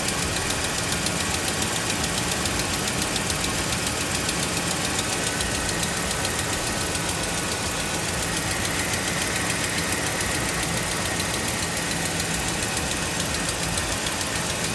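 Dodge Ram's Hemi V8 engine idling steadily with a fast, regular ticking over it. This is the tick the owner is trying to pin down as either an engine tick or an exhaust leak.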